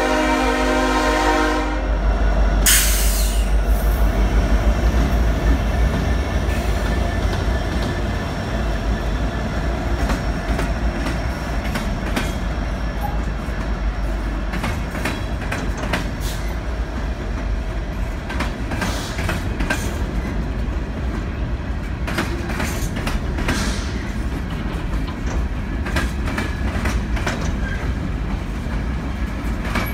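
A freight train's diesel locomotives pass close by, their horn sounding a chord that cuts off about two seconds in, followed by a short hiss. The heavy engine rumble eases after a few seconds into the rolling of loaded hopper cars, their wheels clicking steadily over the rail joints.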